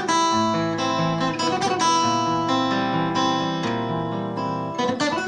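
Acoustic guitar played fingerstyle: a run of overlapping plucked notes over moving bass notes, like an arpeggio passage.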